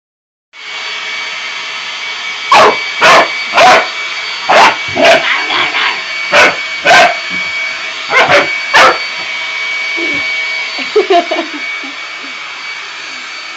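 A blow dryer switches on and runs with a steady whining hiss. A dog barks at it about a dozen times in quick, loud barks, then stops, and a few softer yelps or whines follow.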